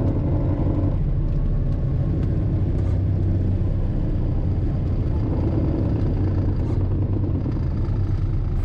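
Steady low drone of a Cessna 210's engine and propeller heard inside the cabin while the aircraft rolls along the runway.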